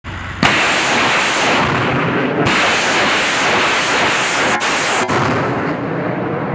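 Tornado-G multiple rocket launcher firing a salvo of 122 mm rockets: a continuous loud rushing roar as rockets leave the tubes one after another, with a brief dip about two and a half seconds in and two sharp cracks a little after four and a half seconds.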